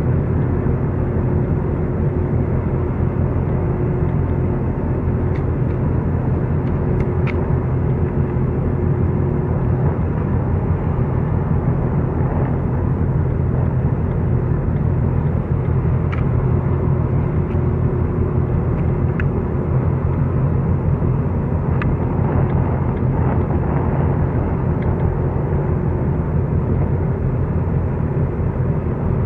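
Marine diesel machinery running at a steady low rumble, with a faint steady hum above it and a few faint ticks.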